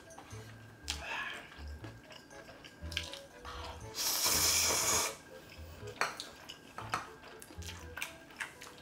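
A loud slurp of Buldak spicy stir-fried noodles, about four seconds in and lasting about a second, among close-up wet chewing clicks and lip smacks. Light background music plays under it.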